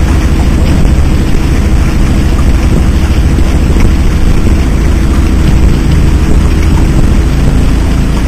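Skiff's outboard motor running steadily under way: a loud, constant low rumble under an even rushing noise.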